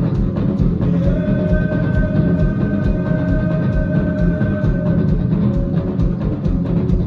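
Live band playing through a PA, with drums and guitars. The drum kit beats fast and steadily, and one long held note sounds over it from about a second in to about five seconds.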